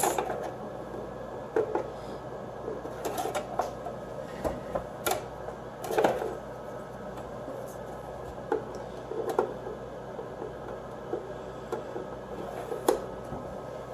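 Scattered light clicks and knocks of a mini fridge's shelf tray being handled, over the steady hum of the thermoelectric (solid-state) fridge's fan running.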